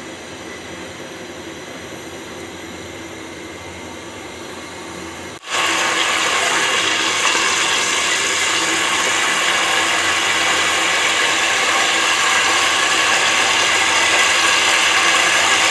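Cumin seeds sizzling in hot oil in a metal cooking pot, a steady frying hiss. After a sharp break about five seconds in, it comes back much louder and stays steady.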